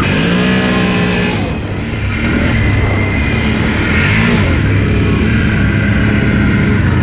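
Can-Am Renegade ATV engine running under way, its pitch rising as it accelerates just after the start, with further swells in revs around two and four seconds in.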